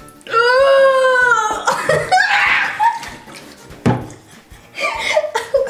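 A girl's high-pitched scream, held for about a second, as slime is poured over her head from a plastic bucket, followed by a wet splattering pour and a sharp knock. Laughter near the end.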